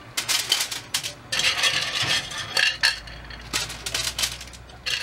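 Aluminium foil crinkling and clam shells clattering against each other as hands pack raw clams into a foil-lined pot, in irregular rustles and clicks.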